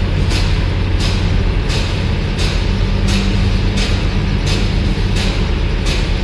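Scania P410 XT truck's diesel engine idling steadily, with a short sharp tick or hiss repeating evenly about every 0.7 seconds over it.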